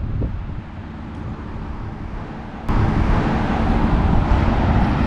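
Outdoor background noise, a steady low rumble without any clear tone that turns suddenly louder and hissier about two and a half seconds in.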